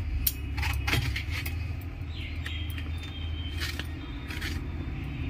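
Kitchen knife cutting through a raw brinjal (eggplant) and tapping on a steel plate: a few sharp clicks, about three in the first second and a half and two more near four seconds in, over a steady low hum.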